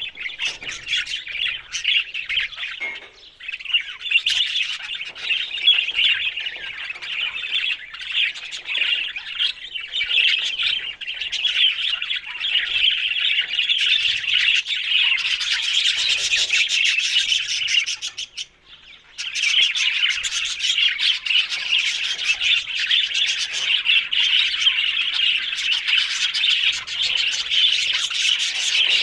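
Budgerigars chirping and warbling in a dense, continuous chatter, with a brief pause about two-thirds of the way through.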